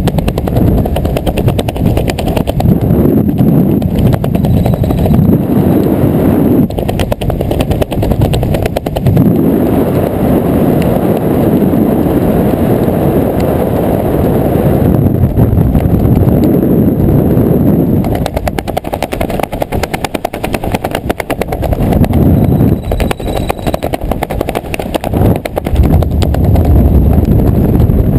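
Wind buffeting the microphone under an open parachute, with the uncollapsed slider fabric flapping rapidly in the airflow: a loud, low rumble with a fast fluttering rattle that swells and eases every few seconds.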